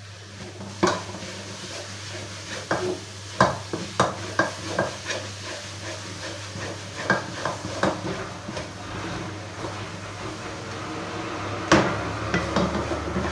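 Wooden spatula stirring and scraping a thick coconut barfi mixture around an aluminium kadhai, with irregular knocks of the spatula against the pan; the loudest knock comes near the end.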